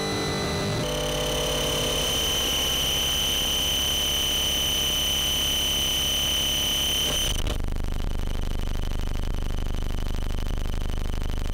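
Electromagnetic interference from a myki ticket vending machine, picked up by the coil of a home-built induction loop receiver. A steady high-pitched whine over a low hum changes about seven seconds in to a fine, rapid buzz.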